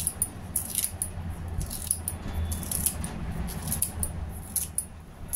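Kitchen scissors snipping kaffir lime leaves, a series of short crisp snips about a second apart, over a low steady hum.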